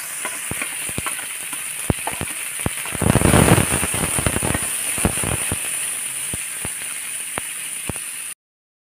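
Sliced onions frying in hot oil in a kadai: steady sizzling with frequent crackling pops, louder for a second or so about three seconds in as they are stirred with a metal spatula. The sound cuts off abruptly just before the end.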